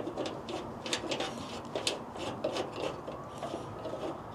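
Metal ditch-light bracket scraping and clicking against the truck's hood hinge as it is worked into place by hand, in short irregular scrapes and knocks.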